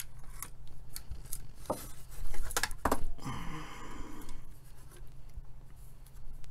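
Clicks and light metallic clinks of small metal parts and a loosened sheet-metal front panel being handled and set down on a workbench, a scattering of sharp knocks with the loudest cluster a little before halfway.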